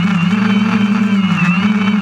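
DJI Phantom quadcopter's four electric motors and propellers running loud and close while it hovers, as heard from the camera on the drone itself. A steady hum with a thin high whine above it, wavering slightly in pitch as the motors hold position, with a small dip about one and a half seconds in.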